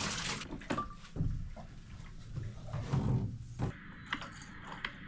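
Water being poured into a bathtub stops about half a second in, followed by a series of knocks and low thuds from a container being handled and set down, with a few light clicks near the end.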